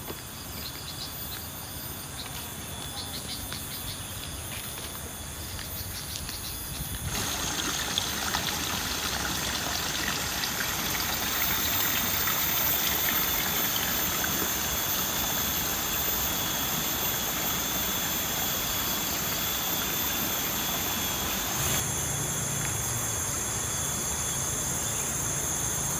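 Outdoor rice-field ambience: steady, high insect trilling over a constant rushing hiss. The sound shifts abruptly, growing louder about seven seconds in and changing character again near the end.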